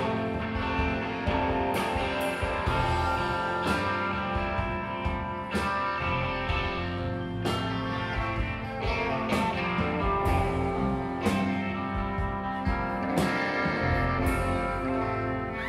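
Live rock band playing an instrumental passage: electric guitars strumming over a drum kit, with cymbal crashes every second or two.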